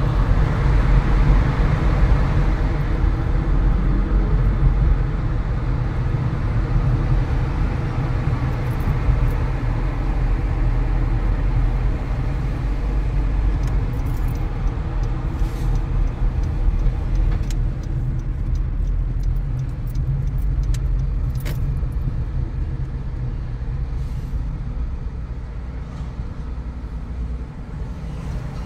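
Car driving: steady road and engine noise with a deep rumble, gradually getting quieter toward the end, with a few faint clicks in the second half.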